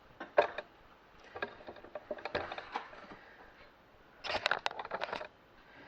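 Knife and utensils clicking and knocking on a kitchen board, with scattered single taps and a quick run of taps about four seconds in.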